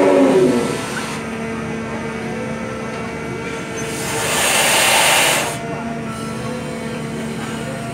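The Great Elephant walking machine: the tail of its trumpet call gliding down in pitch and fading within the first second, then the steady hum of its engine and hydraulics as the riveted ear moves. A hiss swells about four seconds in and cuts off about a second and a half later.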